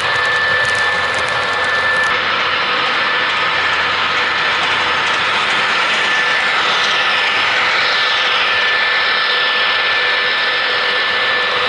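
Model train running past: the metal wheels of the freight cars click over the track for about the first two seconds, over a steady mechanical hum from the running model locomotive and train.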